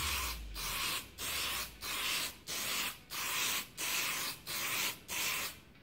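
Aerosol can of clear acrylic lacquer spraying a light dust coat in a run of short hissing bursts, about eight, each roughly half a second long with brief pauses between.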